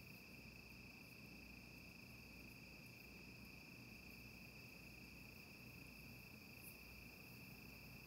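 Faint, steady high-pitched chorus of night insects, crickets, running on without a break.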